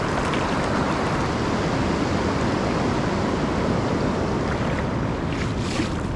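Ocean surf breaking and washing up the beach as a steady rush, with wind rumbling on the microphone.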